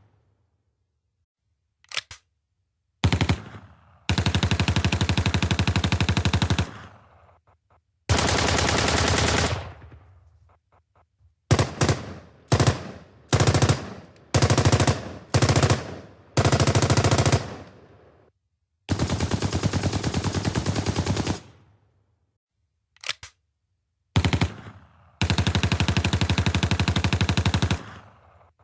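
Machine gun firing in bursts of rapid automatic fire separated by short pauses. Some bursts last two to three seconds, and a run of short bursts falls in the middle. Several bursts trail off in an echo.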